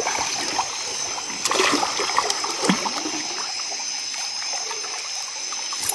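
River water splashing and trickling around a fisherman wading in the shallows, with a louder slosh about a second and a half in and small scattered clicks.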